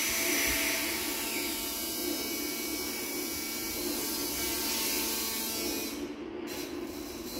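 Steady buzzing, whirring noise from an experimental sound performance with objects and electronics. The high hiss drops out briefly about six seconds in.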